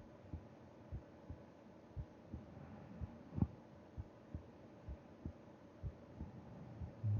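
Resting heartbeat heard through the chest wall, a steady lub-dub about once a second, with one louder thump a little past the middle.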